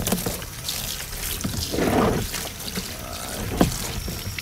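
Water pouring into a bucket as it fills, with a sharp knock about three and a half seconds in.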